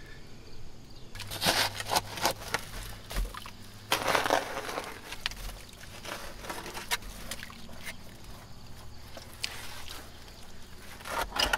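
A shovel digging and scraping into wet, mucky privy soil: irregular crunching scrapes and scoops, with a few heavier strokes.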